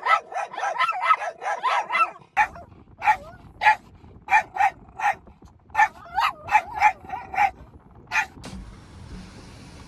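Small dog barking in high-pitched yaps: a fast run of about four barks a second, then more spaced, uneven barks, stopping about eight seconds in.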